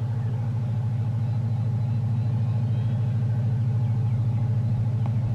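EMD WDP4D diesel locomotive's two-stroke V16 engine running with a steady, fast low throb, growing slightly louder.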